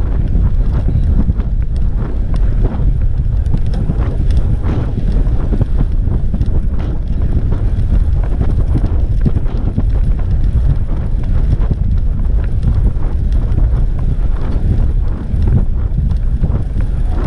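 Wind buffeting the microphone of a camera riding on a moving road bike: a loud, steady low rumble.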